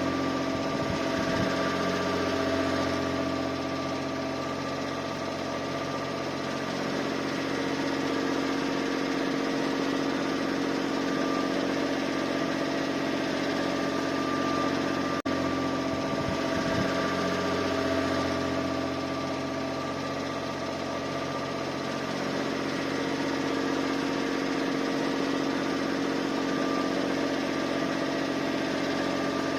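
Suzuki Spacia (MK53S) engine running at low speed with a steady mechanical drone carrying the rattling, clicking noise it makes when cold; the owner suspects the belt tensioner or the water pump. A brief break about halfway through.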